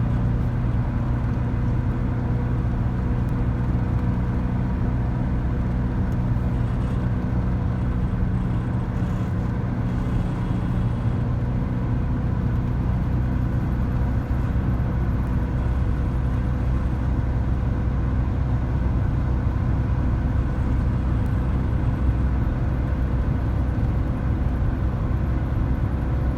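Air-cooled VW bus flat-four engine running steadily under way, with road noise, its pitch holding even.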